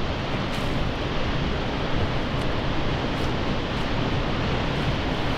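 Steady rushing noise aboard a boat below a dam outflow: wind on the microphone mixed with fast water moving around the hull.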